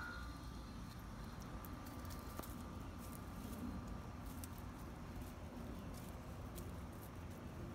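A miniature pinscher's paws rustling and crunching through dry wood-chip mulch as she noses around, with scattered light clicks.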